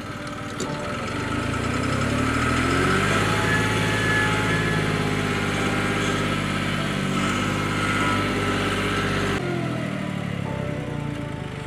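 Loader engine revving up over about two seconds, held at high revs for several seconds, then dropping back quickly near the end.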